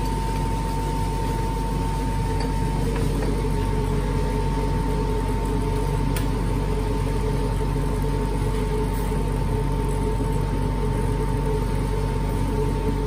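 Steady machine hum with a constant whine over it, unchanging in level, and one faint click about six seconds in.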